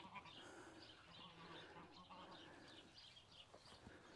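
Near silence: faint outdoor ambience with scattered faint bird chirps.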